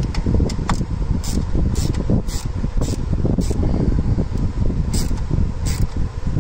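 Socket ratchet clicking as the intake manifold spacer bolts are lightly snugged down: short single clicks about every half second, pausing for a moment midway, over a steady low rushing background.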